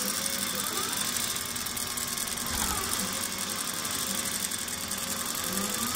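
Voyager 17 mid-arm quilting machine stitching rapidly while the stepper motors of a CNC quilting frame move it, their whine gliding up and down in pitch as the head traces a pattern.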